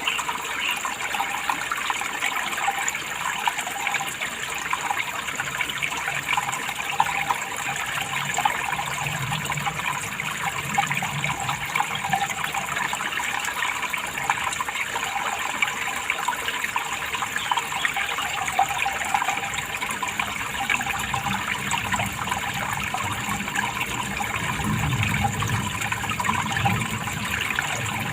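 Running water splashing and trickling steadily, with a slightly fuller low rush a few seconds before the end.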